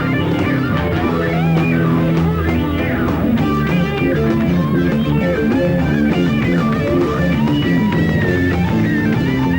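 Rock band playing an instrumental passage live, an electric lead guitar line with bending, gliding notes over bass and drums.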